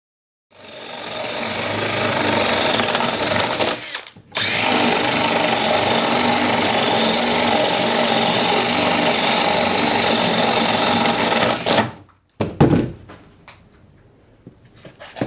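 DeWalt DC970 18-volt cordless drill boring through a 2x8 plank with a 1.5-inch spade bit. The motor winds up about half a second in, drops out briefly near 4 s, runs steadily under load until about 12 s, then stops, followed by a few knocks.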